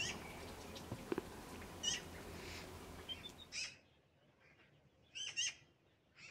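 Ducklings peeping in short, high chirps a second or two apart over a faint outdoor background. About three and a half seconds in the background drops away, and a few more bird chirps follow, including a quick pair about five seconds in.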